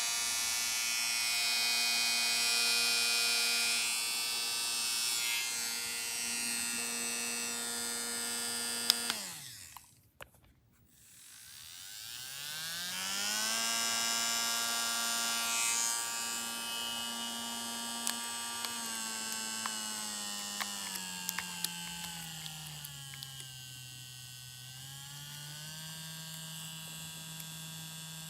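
Portable cordless electric nail drill (35,000 RPM rated) running with a steady high whir. After a click about nine seconds in it winds down and stops, then spins back up a few seconds later. Later it is turned down to a lower speed and raised a little again, with a few light clicks.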